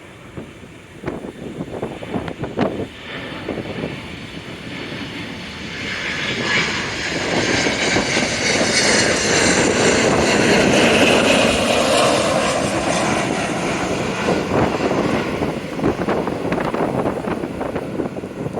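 Jet airliner on landing approach passing close by, its engine noise swelling to a peak about halfway through and then slowly fading.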